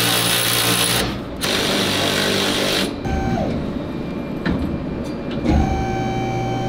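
Power tool running in two loud bursts of about a second and a half each while suspension fasteners are undone. It is followed by a quieter stretch, a brief whine that drops in pitch, and a steady whine starting about five and a half seconds in.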